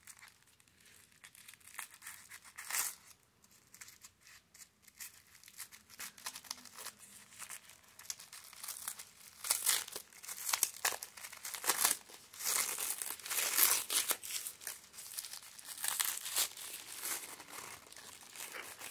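Tissue paper crinkling and tearing as a wrapped bundle is unwrapped by hand: sparse, quiet crackles at first, growing busier and louder about halfway through.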